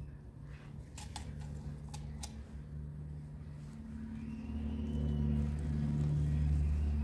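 A low, steady engine hum, like a vehicle running close by, growing louder from about halfway through. A few light clicks sound in the first couple of seconds.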